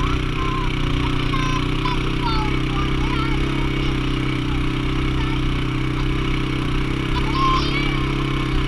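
Small engine of the towing vehicle running steadily while pulling the chair along a dirt trail, with short high squeaks scattered over it.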